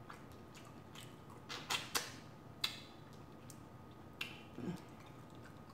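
Cooked shrimp being peeled by hand: a few short crackles and clicks of shell and fingernails, bunched in the middle with one more near the end.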